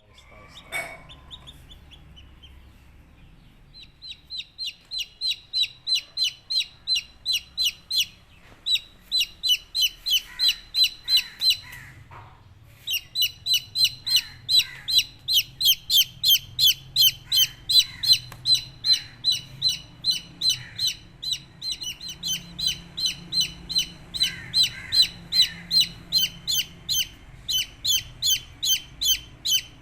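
Baby chicks peeping: a long run of short, high chirps, each falling slightly in pitch, a few a second, starting a few seconds in with a couple of brief pauses.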